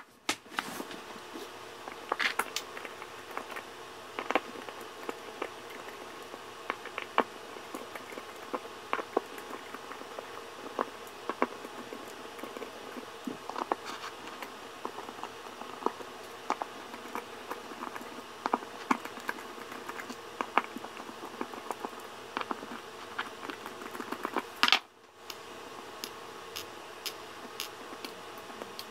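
Small irregular metallic clicks and taps from a small Torx screwdriver turning the screws of a Seagate 7200.7 hard drive's circuit board, mixed with the knocks of the drive and board being handled, over a steady background hum.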